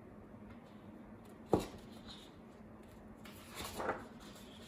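Sheets of drawing paper handled on a tabletop: a single sharp knock about a second and a half in, then a short rustle of paper sliding a little before the end.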